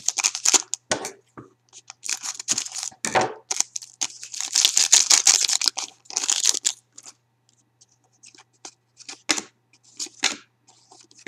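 Foil wrapper of a Panini Titanium hockey card pack being torn open and crinkled in several bursts, loudest from about four to seven seconds in, then a few faint clicks as the cards are handled.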